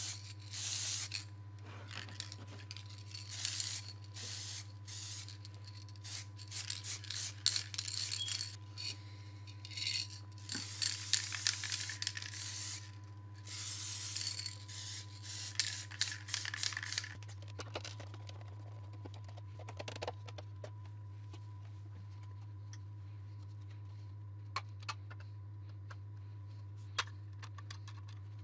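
Aerosol spray can of plastic primer hissing in a string of short bursts, about a dozen of them, as it coats the plastic headlight parts. The spraying stops about two-thirds of the way through, leaving a few faint clicks over a steady low hum.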